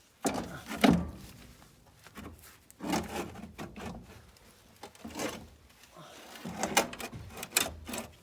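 Knocks, clunks and scraping of a heavy battery being set into and shifted about in a backhoe's battery compartment, in four short bursts with quiet gaps between them. The battery is too tall for the compartment.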